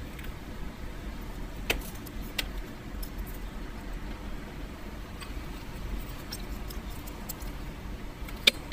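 Small clicks and taps of a screw-capped jar of Aqueous hobby paint being handled and opened: a few scattered sharp clicks, the loudest near the end, over a steady low background rumble.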